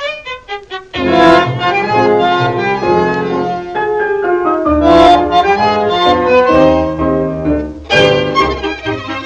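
Tango orchestra playing an instrumental passage with no singing: violins over piano and double bass. Short, separate quiet notes in the first second, then the full ensemble comes in loudly about a second in, with strong accented chords about five and eight seconds in.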